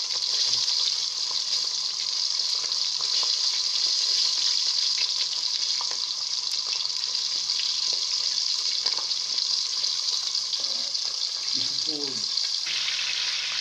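Food frying in hot oil in a pan: a steady sizzle.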